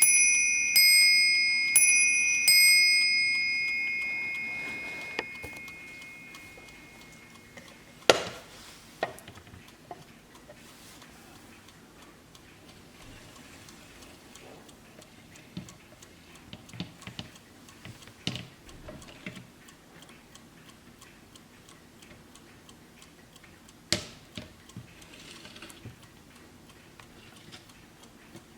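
Warmink mantel clock striking on its double bell: three strokes about a second apart, two bells sounding together at slightly different pitches, the ring dying away over a few seconds. The movement then ticks steadily, with a few sharp knocks, the loudest about 8 and 24 seconds in.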